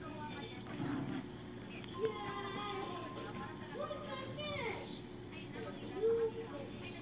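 A continuous high-pitched whine, one unchanging tone, with faint indistinct voice-like sounds underneath.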